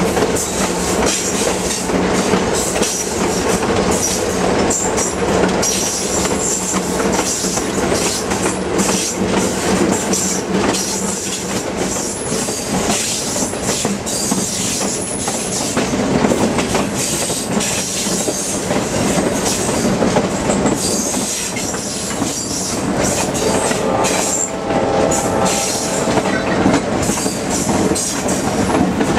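Passenger train cars rolling along the track, heard from outside the coach: a steady, loud rattle and clatter of wheels and running gear over the rails, with brief high-pitched wheel squeals now and then.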